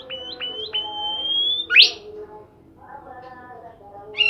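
A songbird singing clear whistles. Three short rising notes lead into a long whistle that climbs slowly, then a sharp upward sweep. A loud, fast trill of repeated notes starts near the end.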